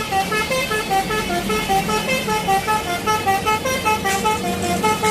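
Telolet basuri bus horn playing a quick tune of short notes, about four to five a second.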